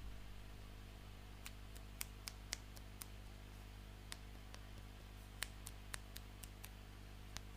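Small plastic toy pieces clicking and tapping as they are handled: sharp, light clicks in two quick runs, near two and six seconds in, over a faint steady hum.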